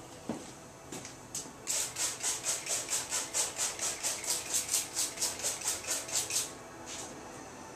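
Handheld plastic trigger spray bottle spritzing repeatedly onto a canvas: one spritz, then a fast even run of about five hissing sprays a second for nearly five seconds, which then stops.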